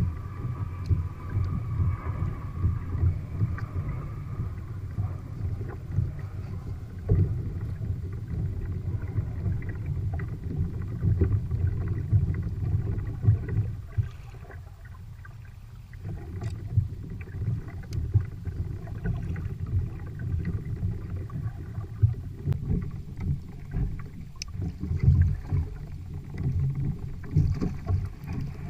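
Irregular low rumble of wind and water around a kayak at sea, dipping quieter for a couple of seconds midway.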